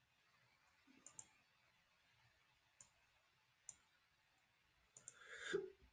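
Near silence with a handful of faint computer mouse clicks, some in quick pairs, and a brief faint noise near the end.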